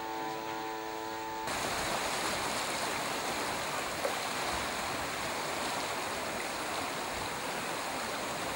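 Fast-flowing floodwater rushing, a steady dense roar of water that comes in abruptly about a second and a half in. Before that, a held chord of steady tones sounds and cuts off.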